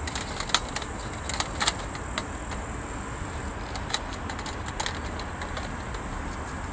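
Scattered light metallic clicks and clinks from the steel parts of a small folding grill being handled and settled into place, over a steady low rumble.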